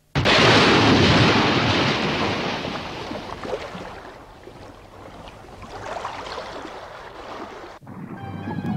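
A big splash as a heavy object crashes into deep water: a sudden loud rush of water that slowly fades over a few seconds, swells again, then cuts off abruptly near the end as music comes in.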